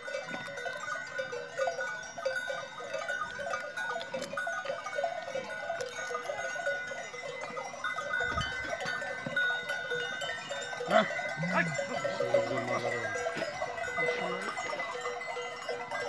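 Livestock bells on a passing herd of cattle, clanking and ringing steadily, with a short low animal call about twelve seconds in.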